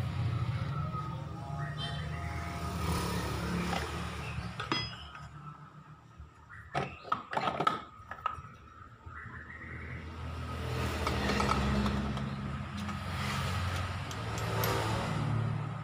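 Honda Vario scooter engine running with the CVT cover off, the drive pulley, belt and clutch spinning, and swelling twice in the second half. It runs smoothly, without the crackling 'krek krek' CVT noise, after the pulley faces were cleaned of oil and refitted. A few sharp clinks come near the middle.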